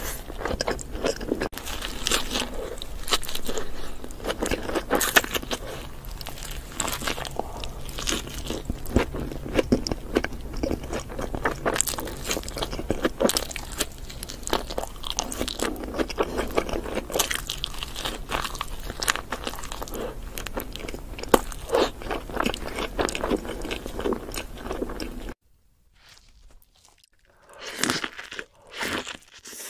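Close-miked eating: dense crackling crunches of bites and chewing into a crispy fried chicken burger. About 25 seconds in they stop abruptly, followed by a few softer, quieter bites and chews of a cheeseburger.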